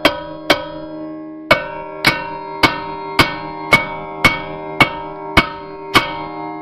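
Hammer blows on a rusted-on brake rotor, about two a second, each a sharp clang that leaves the rotor ringing like a bell. There are eleven blows, with a pause of about a second after the first two. The blows are working the rotor loose from the hub.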